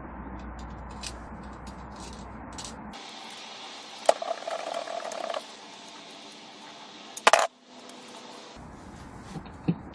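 Small metal parts clinking and rattling against a hard surface. There is a ringing rattle about four seconds in, a sharp loud click past the seven-second mark, and a few light clicks near the end, over a low hum in the first three seconds.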